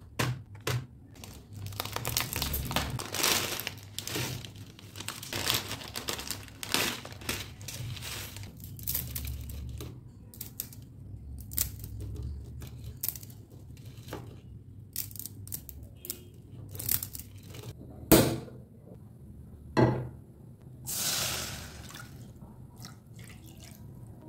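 Crinkling and tearing of a plastic instant-noodle packet and dry noodles crackling as hands break the block apart, in many short bursts. Near the end come two sharp knocks, then a short smooth rush of water being poured into a pan.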